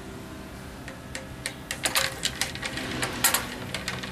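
Wooden spoon knocking and scraping against the inside of a metal pot while ramen noodles are stirred: irregular quick clicks, sparse at first and busier from about a second and a half in.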